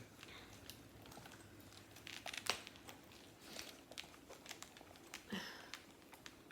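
Faint rustling and small clicks of a leather-and-suede purse being handled while a phone is slipped inside it to check the fit.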